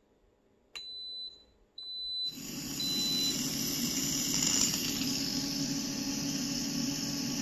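Instant Pot electric pressure cooker beeping a few times at the end of its cooking cycle, then the steam release valve venting with a loud, steady hiss: a quick release of the pressure. The hiss cuts off suddenly near the end.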